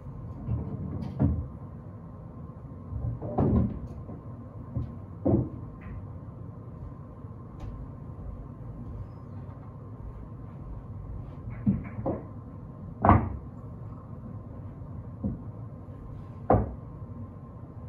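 Billiard balls being handled and set down on the pool table: a scattering of sharp, irregular knocks and clacks, the loudest about two-thirds of the way through.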